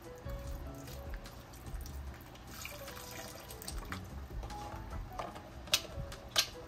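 Beef broth being poured into a pot of soup, a splashing pour of liquid, with soft background music. Two sharp knocks come near the end, about half a second apart.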